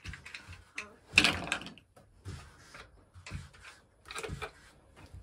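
Red plastic terminal caps being pulled off the posts of 6-volt golf-cart batteries and handled: a string of short clicks and rustles, the loudest about a second in.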